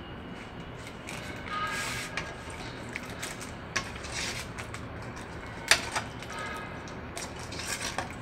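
Steel ladle stirring chicken curry in a metal pan, scraping along the pan and knocking against it several times, with the loudest clack a little past halfway.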